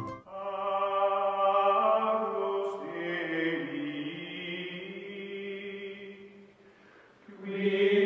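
Music of a choir chanting in long held chords. It fades almost away about seven seconds in and swells back near the end.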